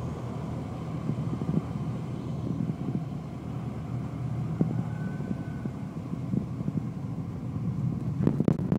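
Light single-engine propeller plane's piston engine and propeller running with a steady low drone, heard from inside the cockpit. A few knocks near the end.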